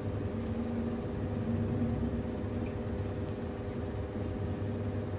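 Lit gas hob burner under a covered pot of boiling soup, giving a steady low rumble with a faint hum and a light hiss.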